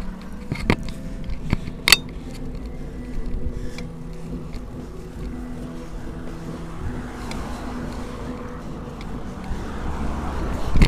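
A car approaching and passing close by, growing louder over the last few seconds to a peak at the end, over steady low wind rumble on the microphone. Two sharp clicks, about one and two seconds in.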